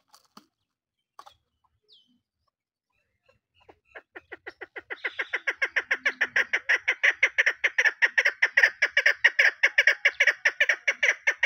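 Chukar partridge calling in a rapid, even run of short clucking notes, about six a second. The calls start faint a few seconds in, build to full loudness within a second or so, then hold steady.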